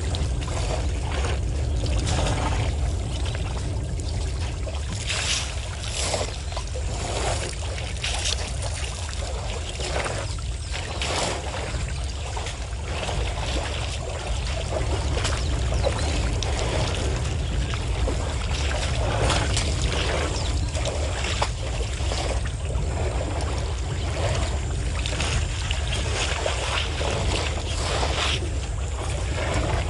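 African elephants drinking and wading in a waterhole: irregular splashing and sloshing of water, over a steady low rumble.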